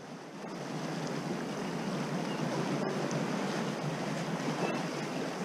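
Steady wash of small waves against the boulders of a rock wall, mixed with wind noise on the microphone. A few faint ticks sound over it.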